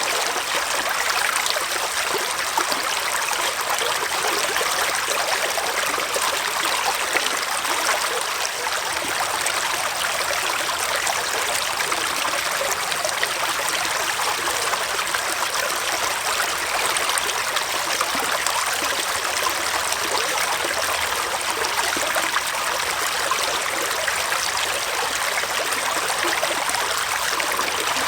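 Small forest stream flowing and trickling over stones, a steady even rush of water.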